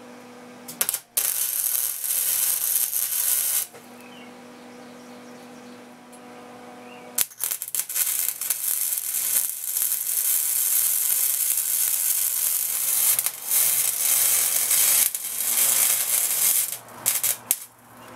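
Electric arc welding on the steel shifter handle of a riding mower, crackling and spitting. A short weld starts about a second in. Then there is a pause with only the welder's steady hum, and a long weld begins about seven seconds in, breaking off briefly a few times and stopping near the end.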